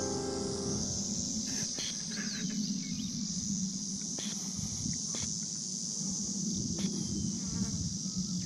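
A steady, high-pitched chorus of insects, over a low, uneven rumble.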